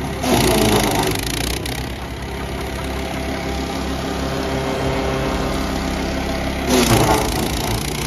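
Wood chipper shredder's 13 HP engine running steadily, with two louder surges of crunching as branches are fed into the hopper and chipped: one just after the start and one near the end.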